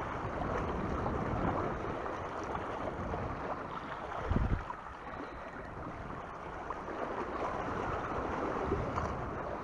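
Steady wind noise on the microphone with the sea washing, and a brief low thump about four and a half seconds in.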